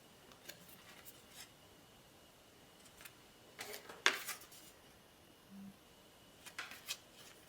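Faint handling noise from swatch color cards being picked up and set down: scattered light taps and rustles, the sharpest tap about four seconds in, with another cluster near the end.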